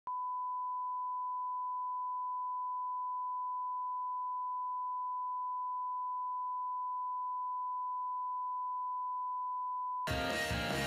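Steady 1 kHz sine-wave line-up test tone, the reference tone that goes with colour bars, held at one pitch for about ten seconds. It cuts off abruptly near the end as music starts.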